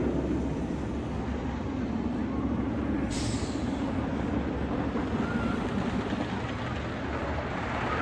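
Roller coaster machinery with a steady low rumble and hum; about three seconds in, a sudden hiss of air starts and fades out over a second.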